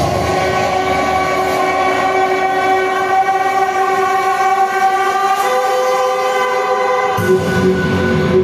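Recorded dance music over stage loudspeakers: a long held chord of steady tones with no drums or bass, the chord shifting about five seconds in. The beat and bass come back in about seven seconds in.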